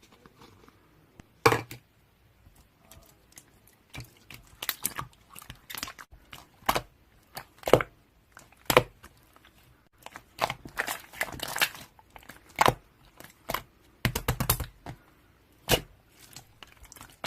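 Irregular crinkling, crackling and tapping close to the microphone, with sharp single clicks and short rapid runs of them separated by brief quiet gaps.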